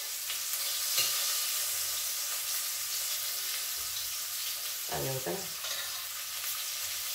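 Pork ribs sizzling steadily as they sear in hot oil in a frying pan.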